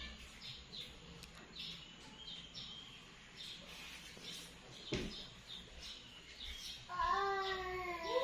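A domestic cat meows once near the end, a long drawn-out call, over faint bird chirps; a single sharp click about five seconds in.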